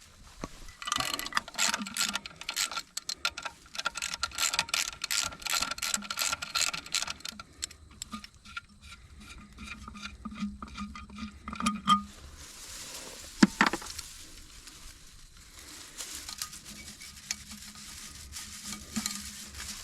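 A hand ratchet wrench clicking in quick runs as the bolts of the track tensioner's access cover are backed off, with metal clinks between runs. A single sharp metal knock comes about thirteen seconds in, after the clicking has stopped.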